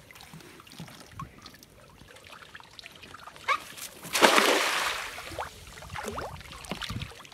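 Small drips and knocks of water, then a splash about four seconds in that lasts about a second and fades.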